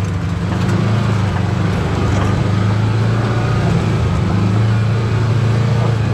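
Kawasaki Teryx KRX4 1000 side-by-side's parallel-twin engine running with a steady low note while it creeps over a rough, rocky trail section.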